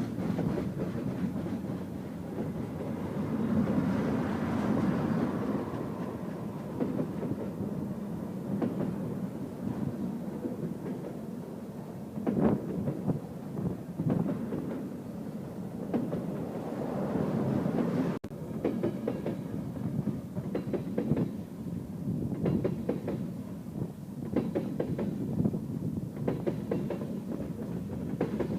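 Train cars rolling past with a continuous low rumble and irregular clacks and knocks from the wheels passing over rail joints. The knocks come more often in the second half.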